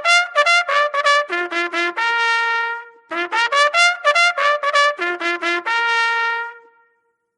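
Solo trumpet playing a short fanfare twice, each time a run of quick notes ending on a long held note; it stops shortly before the end.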